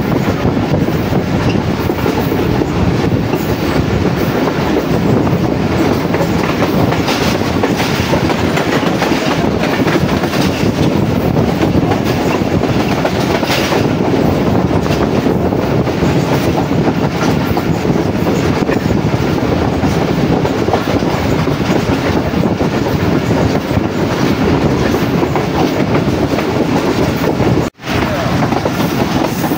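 Passenger express train running at speed, with a steady rush of wheel and track noise. The sound cuts out for a moment near the end.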